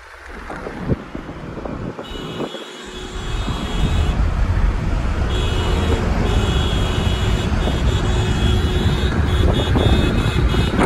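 Road and wind noise of a car driving at speed, heard inside the cabin: a steady rumble that grows louder about four seconds in, with a thin high whine coming and going above it.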